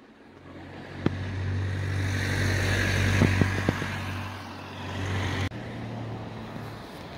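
A car driving past on a city street: a low engine hum and tyre noise swell to a peak about three seconds in, then drop off sharply, with a few light clicks.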